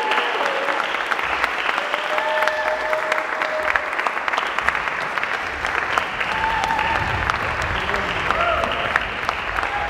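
Audience clapping steadily, with a few voices calling out over it.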